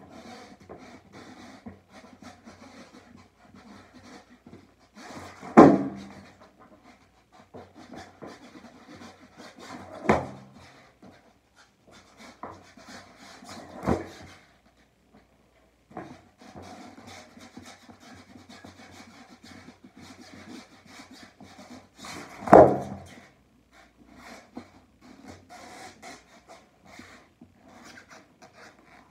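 Skateboard practice on carpet: shoes scuffing and the board's wheels rolling and scraping on the carpet, broken by four thuds of the wooden deck landing, two of them much louder than the others.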